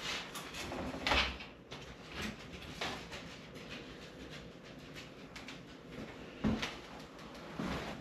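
Clicks, ticks and a few knocks from a road bike's rear wheel being worked out of the frame on a workstand, with the louder clunks about a second in and again about six and a half seconds in.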